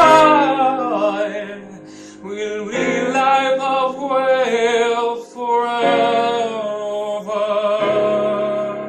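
A song: a voice sings slow, drawn-out phrases over instrumental accompaniment, ending on a long held note near the end.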